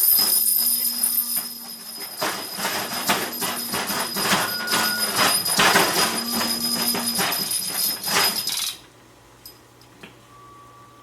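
Hand-made sound effects: a dense rattling clatter of many quick knocks with a steady high ringing over it, stopping suddenly about eight and a half seconds in.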